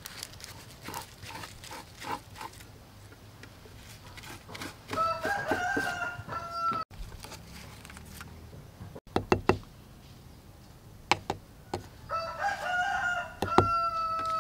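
A rooster crowing twice, each crow lasting under two seconds, about five seconds in and again near the end. Light clicks and taps of a utensil on a plate sound between the crows.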